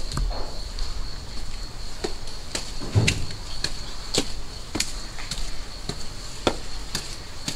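Footsteps on stone and concrete steps, a sharp step roughly every half second, over a steady high insect drone.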